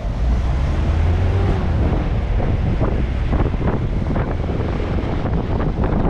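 A road vehicle driving, with a steady low rumble of engine and road noise and wind buffeting the microphone in gusts from partway through.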